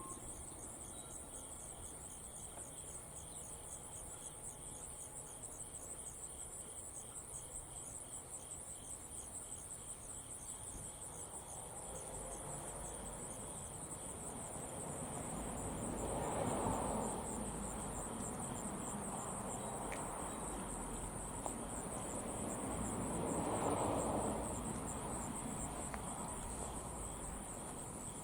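Steady high-pitched insect trilling. About halfway through and again near three-quarters, two swells of lower noise rise and fall over a couple of seconds each, over a low rumble; these swells are the loudest part.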